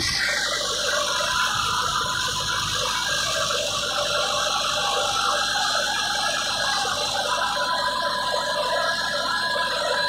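Massey Ferguson 375 tractor's four-cylinder diesel engine running steadily under load while pulling an implement through the field, heard from the driver's seat with a dense mechanical rattle of gears and linkage.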